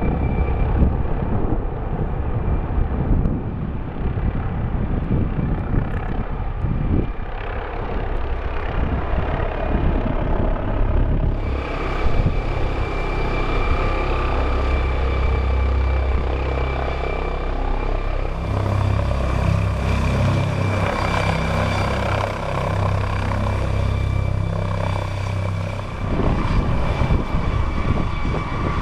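National Park Service rescue helicopter flying and manoeuvring close by: a steady turbine whine with the chop of the rotor blades. It grows louder about twelve seconds in, and the rotor chop is strongest through the middle and later part.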